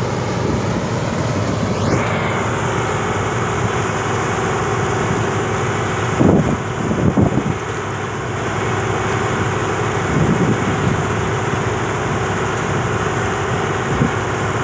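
1976 New Holland 1530 combine harvester running steadily while harvesting: a continuous drone of engine and threshing machinery. A few brief gusts of wind hit the microphone around the middle and near the end.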